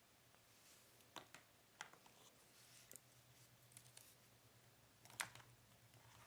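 A few faint clicks and light taps from the earphones and their cord being handled, the loudest about five seconds in, over a faint steady hum.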